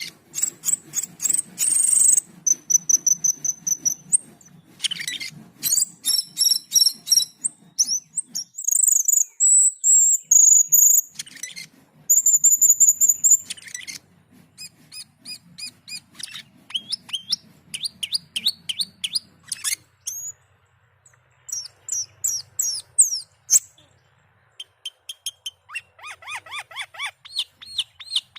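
Cucak keling singing vigorously: fast runs of short chattering and clicking notes mixed with high whistles held for a second or two. The song breaks off briefly twice, then ends with a quick series of falling notes.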